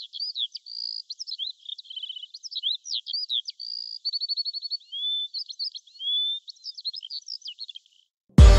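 A songbird singing a fast, varied song of high chirps, short trills and whistled glides, which stops a little before the end. Loud electronic music with a heavy bass beat cuts in at the very end.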